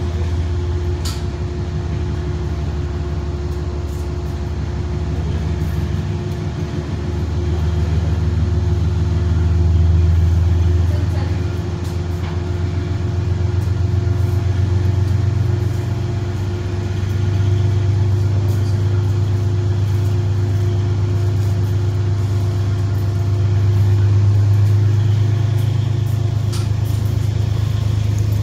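Diesel engine of a GE Genesis P32AC-DM locomotive running as the locomotive moves slowly along the track, a loud, steady low drone that steps up a little in pitch about halfway through.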